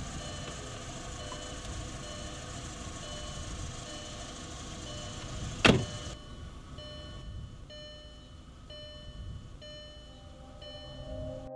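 A car's door-open warning chime beeping steadily, about once every 0.7 s, over outdoor background noise. About halfway through there is a single loud, sharp bang with a short ringing tail.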